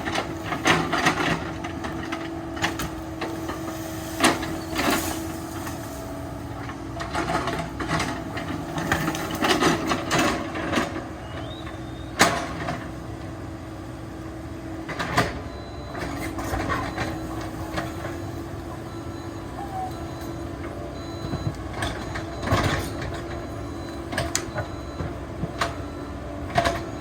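CAT 308 excavator's diesel engine and hydraulics running steadily under load, with repeated sharp clanks and knocks from the machine working through rock and dirt.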